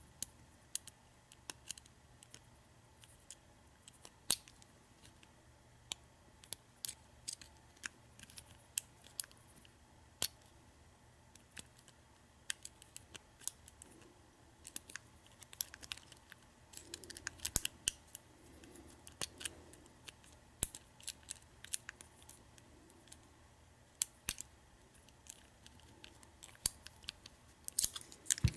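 Lock pick and tension wrench working the pin stacks of a Master Lock Pro Series 6327 padlock: faint, irregular sharp metallic clicks as pins are lifted and set.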